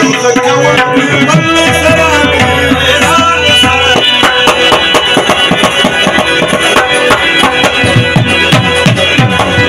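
Pashto folk music played on two harmoniums, a rubab and tabla, with the drum strokes growing busier about four seconds in.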